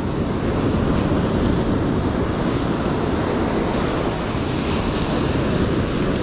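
Ocean surf breaking and washing up the beach, a steady rush with wind buffeting the microphone.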